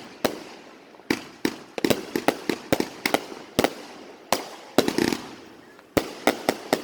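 Fireworks going off: an irregular run of about twenty sharp bangs and pops, some coming in quick clusters and each trailing off in a short echo.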